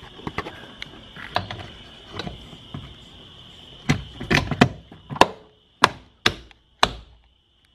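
Mazda Miata door card and speaker grille being pressed and knocked into place by hand, seating the panel's clips: light clicks and rubs at first, then about seven sharp knocks in the second half.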